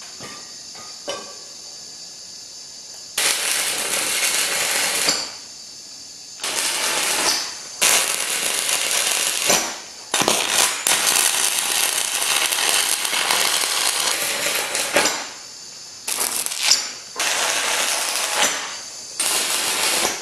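Two sharp knocks near the start, then a stick (arc) welder's arc crackling and hissing in runs of one to five seconds, with short breaks between them, as rod is burned onto heavy steel.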